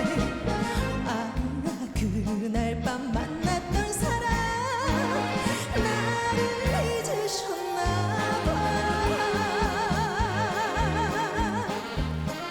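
Trot song with a steady bass beat under a melody line with wide vibrato, held long near the end.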